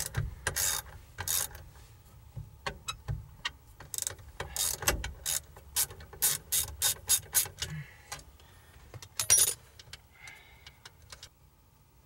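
Hand ratchet wrench clicking in short irregular runs as a loose 11 mm bolt is tightened, with a louder clack about nine seconds in.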